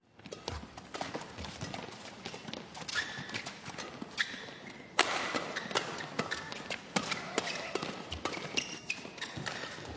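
Badminton rally: rackets striking the shuttlecock in a quick exchange, heard as sharp clicks at uneven spacing, with short squeaks in between. The loudest hit comes about five seconds in.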